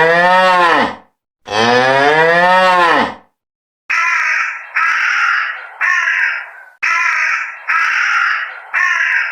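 Cattle mooing: two long, drawn-out moos. From about four seconds in, they give way to six short, harsh, cawing calls about a second apart.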